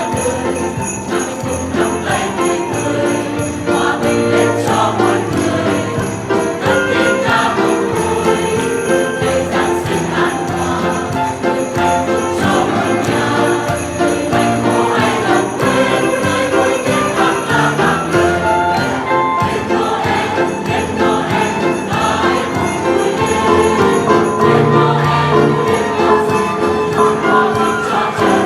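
Music with jingle bells ringing throughout, over a dense run of melodic notes and a choir-like backing.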